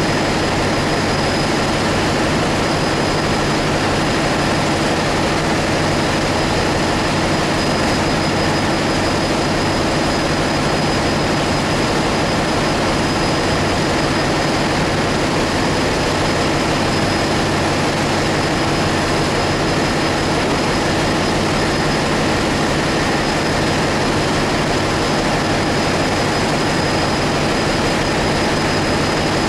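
Ship's engine-room machinery running: a loud, steady drone with several constant low hums and a thin high whine, unchanging throughout.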